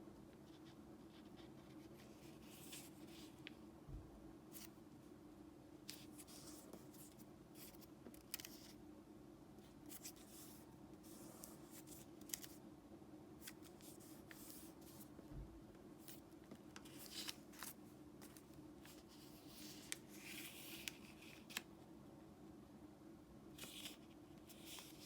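Origami paper being handled, folded and creased: quiet rustles and crisp little crackles in irregular short bursts, over a faint steady low hum.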